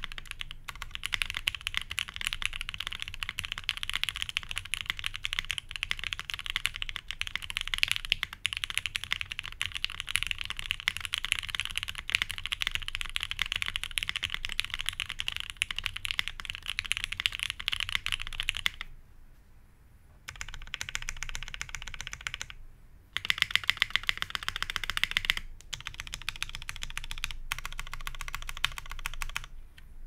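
Fast typing on a GHS.RAR mechanical keyboard with lubed Gateron Oil King linear switches on a POM plate and GMK Hammerhead keycaps: a rapid, continuous stream of keystrokes. About two-thirds through it stops for a second or two, then resumes with a few short breaks.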